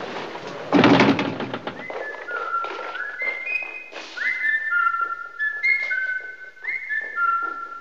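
A loud thunk about a second in, then a person whistling a tune in clear held notes that step up and down.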